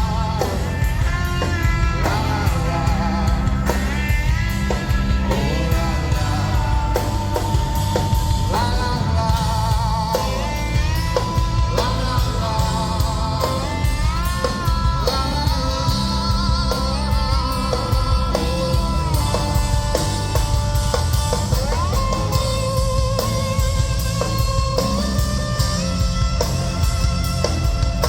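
Live rock band playing an instrumental break: a lead melody of bent, wavering held notes over drums and bass.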